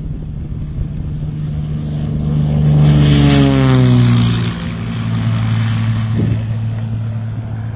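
Embraer Ipanema 203 crop-duster's piston engine and propeller, flying past low: the engine note grows louder to a peak a few seconds in, then its pitch drops as the plane passes and goes on at a lower steady pitch as it moves away.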